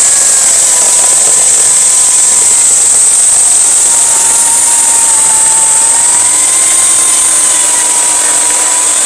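Oregon CS1500 corded electric chainsaw with an 18-inch bar, its motor running steadily under load as the chain cuts through a log.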